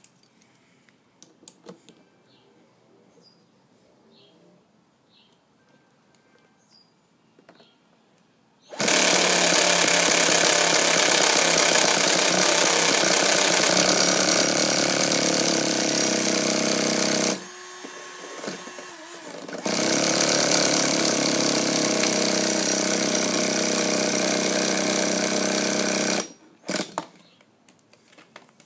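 Electric starter motor whirring steadily in two long runs, about eight seconds and then about six seconds with a short drop in between, cranking the nitro engine of a 1/5-scale motorbike that does not fire. Light clicks and handling knocks come before and after.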